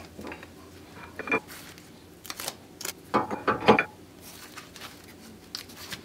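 Metal-backed track brake pad clicking and scraping against the rear brake caliper as it is slid into place, a series of short irregular clicks.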